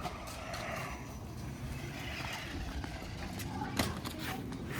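Small electric RC cars driving around, their motors whining up and down in pitch, with scattered clicks and knocks from the cars and ball; one sharper knock near the end.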